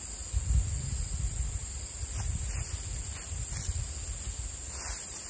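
A steady high-pitched insect drone, unbroken, over a low rumble on the microphone, with a few faint ticks in the second half.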